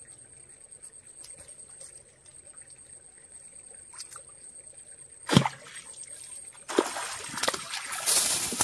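Water splashing: a single sharp splash about five seconds in, then a couple of seconds of heavy, continuous splashing near the end. A steady high insect drone runs underneath.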